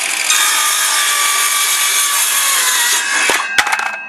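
Circular saw cutting through a polypropylene plate lock board, running loud and steady with a high whine, then winding down about three seconds in. Two sharp knocks follow near the end.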